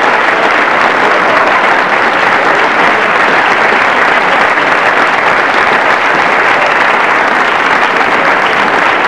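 A roomful of diners applauding: dense, steady clapping from many hands.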